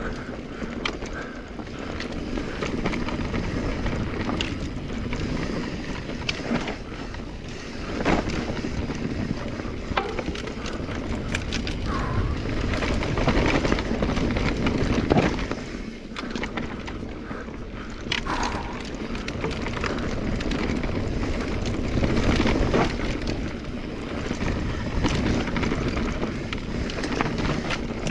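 A 2021 Specialized Stumpjumper EVO Comp 29 mountain bike being ridden on a dirt trail: tyre noise and wind on the microphone, with frequent clicks and knocks from the bike rattling over bumps.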